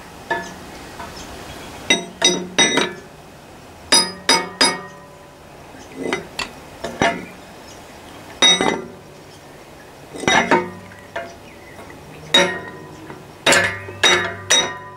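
Hammer tapping on a brass drift rod: sharp, ringing metallic clinks in clusters of two to four taps every couple of seconds. The taps are driving the rust-bonded piston out of the cylinder of a CS Lister stationary diesel engine, and it is slowly moving.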